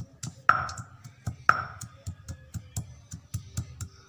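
Stone muller (nora) knocking on a wet stone grinding slab (shil), crushing ginger pieces with quick taps about four a second. Two harder strikes ring out about half a second and a second and a half in.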